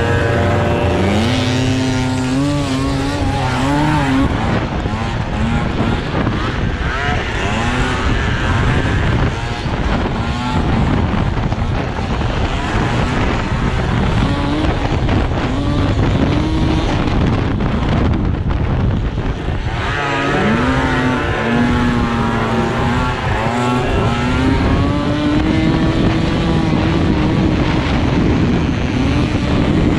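Several racing scooter and moped engines revving hard, their pitch climbing and falling as they accelerate and back off. One passes close and loud at the start, and another again about two-thirds of the way through.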